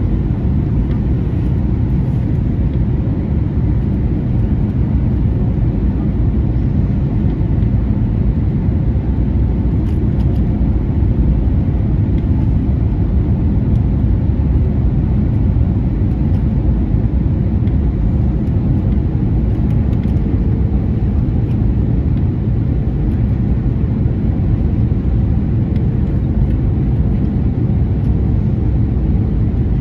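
Steady low rumble of cabin noise inside an Airbus A321neo airliner, from its engines and the airflow over the airframe, with a faint steady hum above it.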